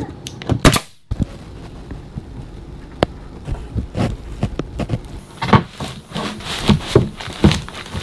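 Nail gun firing twice in quick succession into pine ceiling boards, then a run of irregular wooden knocks and thumps as shiplap boards are pushed and fitted into place overhead.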